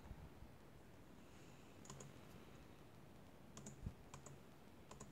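Near silence broken by a few faint, short clicks, one about two seconds in and a small cluster around four seconds.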